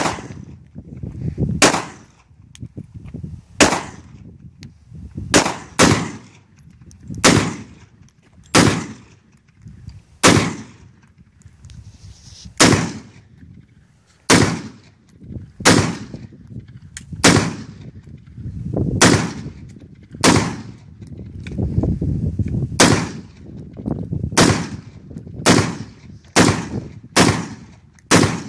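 Diamondback AR pistol fired semi-automatically: about two dozen single shots, each with a short ringing tail. They come a second or two apart at first and speed up to about two a second near the end.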